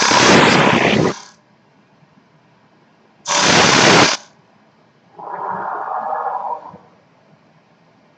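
SideWinder CNC backnife lathe shearing wood from a spinning spindle blank in separate passes. A loud cutting hiss runs for about a second at the start, a shorter one comes about three seconds in, and a softer, duller cut follows from about five to seven seconds. Between cuts only the lathe's faint running is heard.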